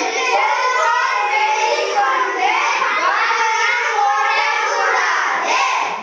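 A group of boys singing together in unison, stopping at the very end.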